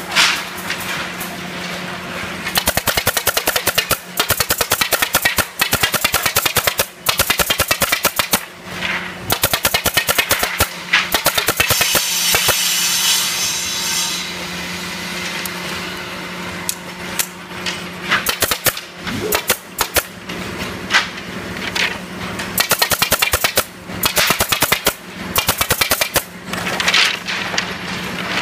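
Pneumatic nail gun firing in quick repeated bursts of sharp shots, fastening black plastic tips onto the ends of wooden broom handles, over a steady machine hum.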